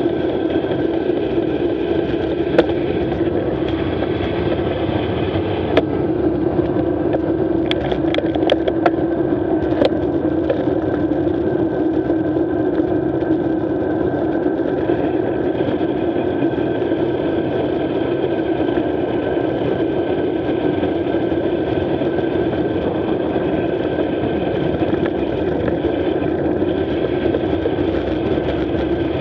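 Combine harvester engine and machinery running at a steady, unchanging speed, with a few short clicks or knocks in the first third.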